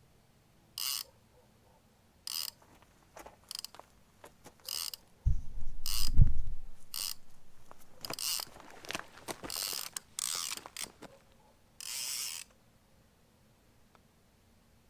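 A baitrunner spinning reel's clicker ratchets in about ten short, irregular bursts as a fish pulls line off the spool. This is a catfish run, which the angler takes for a typical flathead bite on a baitrunner. A loud low rumble comes about five seconds in.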